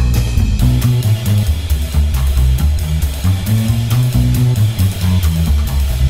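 Background rock music: guitar over a moving bass line and a steady drum beat.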